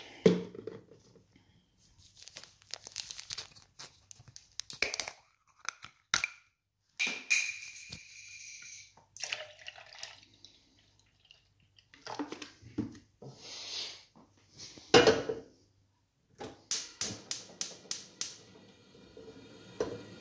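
Milk poured from a plastic bottle into a stainless steel pot, with knocks and clatter of the bottle and pot on the counter. Near the end, a gas hob's igniter clicks rapidly about eight times, then the burner settles to a faint steady hiss.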